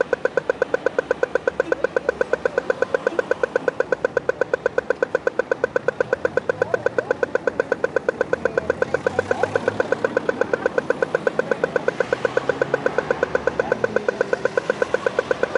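Pedestrian crossing signal giving its rapid walk tone: short pitched ticks repeating evenly at about five a second, with traffic noise underneath.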